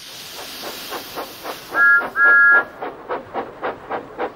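Steam-engine sound effects for an animated tank engine. A hiss of steam fades over the first few seconds under a steady chuffing of about four beats a second. About two seconds in, a two-note whistle gives two toots, the second longer.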